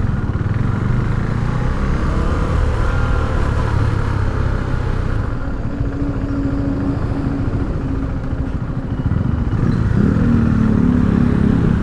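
Motorcycle engine running steadily while riding, heard through a lapel mic inside a full-face helmet, with a rush of wind noise over the mic.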